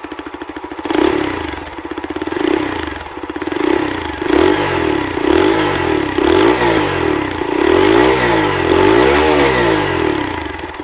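TVS Apache RTR 160 4V BS6's single-cylinder four-stroke engine through its stock exhaust, idling for about a second and then revved again and again in quick throttle blips, the revs climbing higher over the last few seconds.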